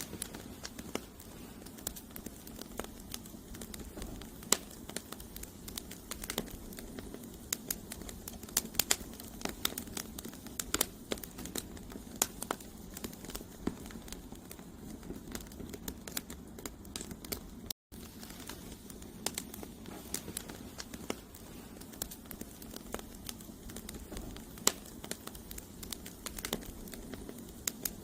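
Campfire of burning firewood crackling: frequent irregular sharp pops and snaps over a steady low rush of flame. The sound cuts out completely for an instant about two-thirds of the way through.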